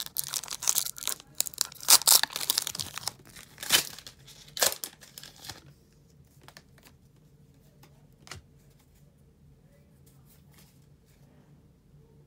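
A foil booster-pack wrapper being torn open and crinkled, a dense crackling for about five seconds, followed by faint scattered ticks of cards being handled.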